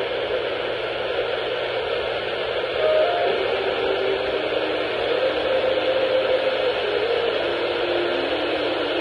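Static hiss from a radio receiver on a weak signal, steady throughout, with faint tones changing pitch underneath it from a few seconds in.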